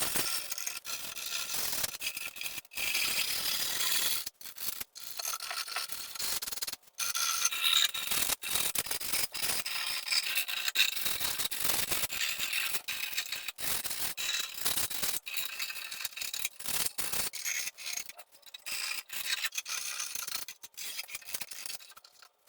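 Sandpaper rubbed by hand over plywood edges to smooth out splinters, a scratchy hiss that stops and starts abruptly several times.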